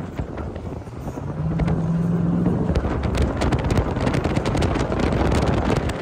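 Vehicle engine running, with wind on the microphone. It gets louder about a second in, and from about three seconds on it turns into a low rumble with rapid crackling.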